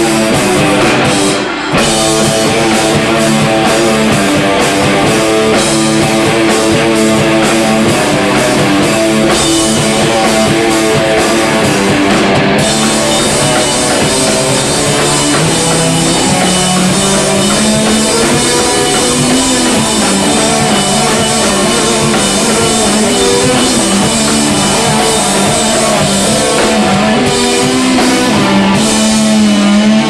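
Live rock band playing loud and steady on electric guitar, bass guitar and drum kit, with a brief break about a second and a half in.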